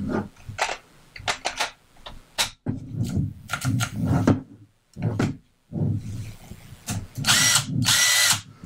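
Bauer cordless power tool run on a DeWalt FlexVolt battery through a battery adapter: a series of clicks as the pack is handled and seated, then the motor running in several trigger bursts, the last two louder and higher-pitched. The tool running shows the FlexVolt powers the Bauer through the adapter.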